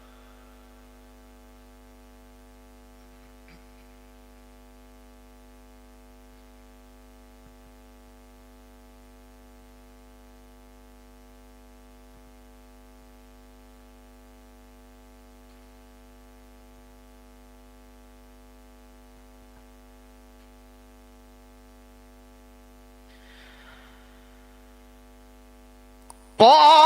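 Faint, steady electrical mains hum: an even drone of several fixed tones that carries on unchanged through a long pause in the recitation. A loud reciting voice cuts in right at the very end.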